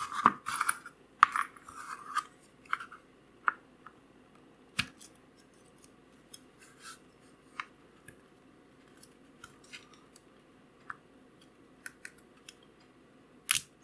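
Small metal-on-metal clicks and short scrapes of a screwdriver and a wood screw being worked into the button of an aluminium mini flashlight. A busy cluster of clicks and scrapes in the first couple of seconds, then scattered single ticks.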